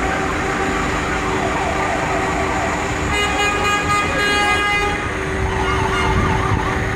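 Fire engine siren and horns sounding in street traffic, with one long horn blast about three seconds in and a warbling siren near the end.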